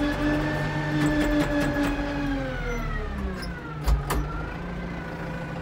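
Kubota M105S tractor's four-cylinder diesel running, heard from inside the cab, its pitch dropping as the revs come down about halfway through. Light ticks and rattles throughout, and one sharp knock about four seconds in.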